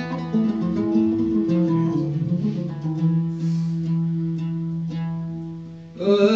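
Andalusian malouf played on violin held upright and a plucked string instrument: a slow passage that settles on a long, low held note, fading away, before the ensemble comes back in loudly near the end.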